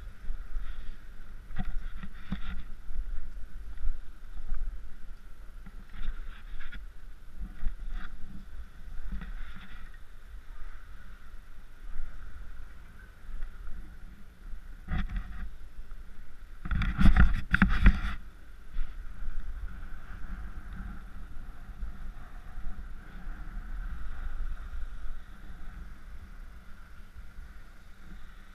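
Skis sliding and scraping over groomed snow, with wind on the camera's microphone; one louder burst of about a second two-thirds of the way through.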